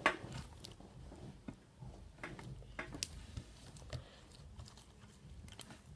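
Faint scattered clicks and light taps of small objects being handled.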